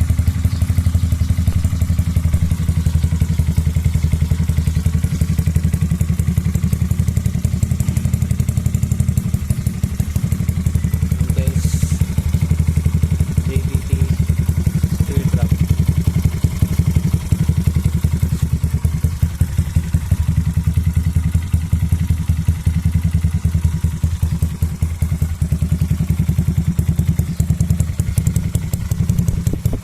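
Yamaha Mio scooter's 160cc single-cylinder four-stroke engine idling steadily through a JVT V4 Teardrop aftermarket exhaust pipe, an even, deep pulsing exhaust note.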